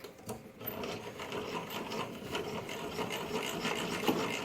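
Wood rubbing and scraping with many small clicks, as parts of a homemade router and saw table are handled and adjusted by hand; no motor running yet.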